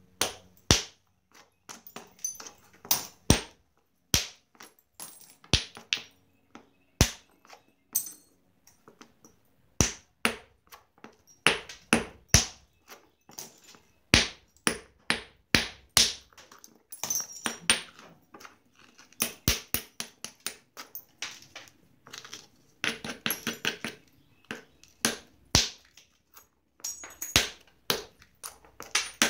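Flintknapping: a striking tool hitting the edge of a Georgetown flint biface, giving sharp, irregular clicks as flakes come off, with a few quick runs of light taps.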